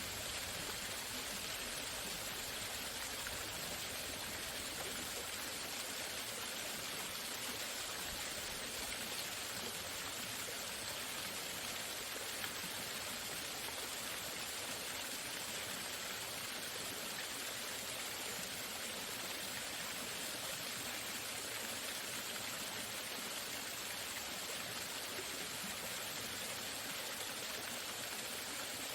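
Waterfall in a forest stream: a steady, unbroken rush of falling water.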